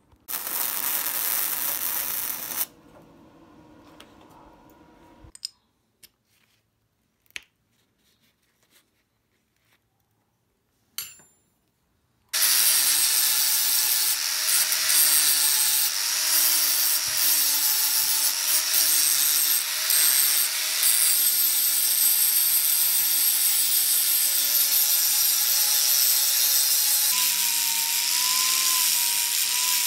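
Angle grinder cutting a steel concrete stake clamped in a vise: a loud, steady grinding noise with a wavering motor whine, which starts abruptly a little under halfway in and runs on. Before it, a couple of seconds of loud noise near the start and a few scattered clicks.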